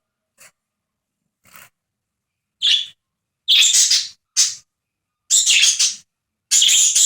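Pet budgie calling in short, rough, loud calls about half a second each: two faint ones first, then a run of five loud calls from about three seconds in. The owner takes the outburst for the bird flipping out, maybe out of fright at the bell.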